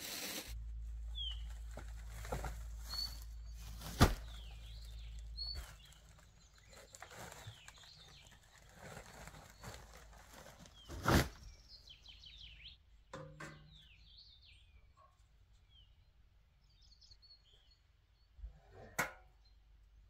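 Small birds chirping with short, scattered calls, over a low rumble for the first few seconds. A few sharp knocks and thuds, the loudest sounds, come as camping gear and a folding chair are handled and set down, about a third of the way in and again near the end.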